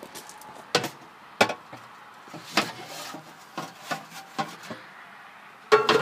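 Several separate knocks and clunks of a metal sheet pan with a wire rack being handled and loaded into a solar oven, with a louder clatter near the end.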